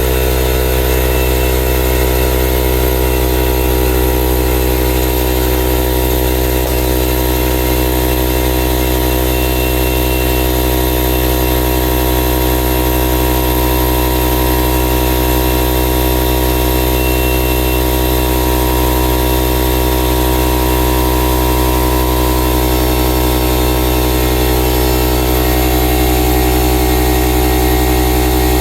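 Stanley 24-litre oil-free air compressor running steadily, its 1.5 hp motor and pump filling the tank with air up to cut-out pressure.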